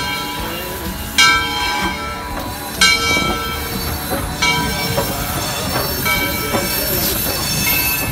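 Southern Railway 630, a 2-8-0 steam locomotive, passing at close range, its bell ringing about five times, once every second and a half, over the rumble of the rods and wheels.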